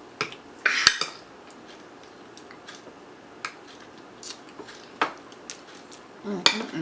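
A spoon clinking and scraping against a dish while an ice cream sundae is eaten: scattered single clicks, with a louder rasping scrape just under a second in.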